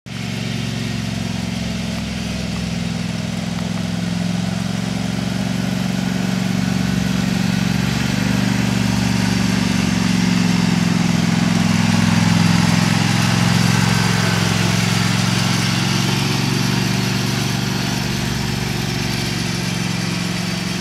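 Craftsman DGT6000 garden tractor's engine running steadily as the tractor drives across a lawn. It grows louder toward the middle as it comes close, then fades somewhat as it drives away.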